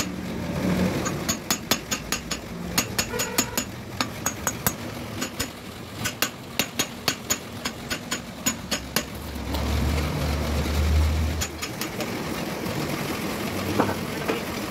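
Hand hammer striking the metal cover of a differential case, a quick irregular run of ringing metallic blows tapping the cover down onto the case. The hammering stops about nine seconds in and is followed by a low rumble lasting a couple of seconds.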